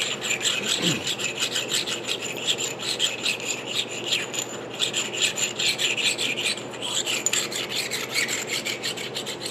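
A stone rubbed in quick back-and-forth strokes over the hardened steel ring-gear mounting face of a Detroit TrueTrac differential case, a steady dry scraping. The stoning takes off any high spots on the surface.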